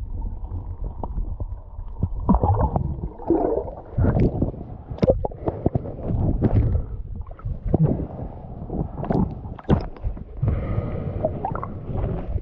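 Muffled low rumble of water heard through an underwater camera housing, then, from about two seconds in, irregular splashing and gurgling as the camera breaks the river surface and bobs half-submerged in the ripples.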